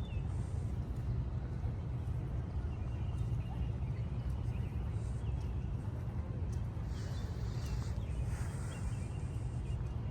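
Outdoor city ambience after rain: a steady low rumble, with small birds chirping briefly now and then and a hiss that swells about seven to nine seconds in.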